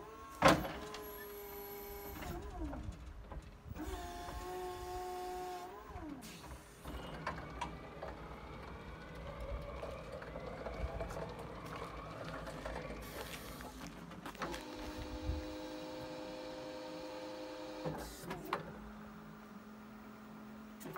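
Battery-electric TCM FHB25-6 forklift's electric motors whining in several steady runs of a few seconds each as the mast and forks are worked, with a whine that rises in pitch in the middle stretch. A sharp knock about half a second in is the loudest sound.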